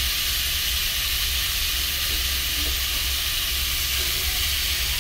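Pork pieces with ginger and onion sizzling steadily as they brown in a pot, over a low steady hum.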